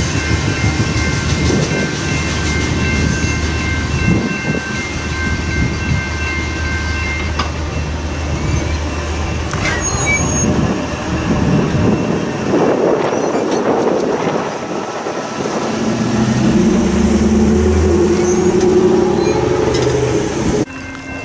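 Double-stack intermodal freight train rumbling away, with high steady ringing tones over it that stop about seven seconds in. The rumble fades after about ten seconds, and a car drives over the crossing near the end.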